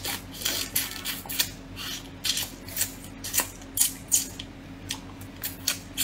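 Cooked crab shell crunching and cracking as it is chewed and broken apart by hand, close to the microphone: sharp, irregular crackles a few times a second.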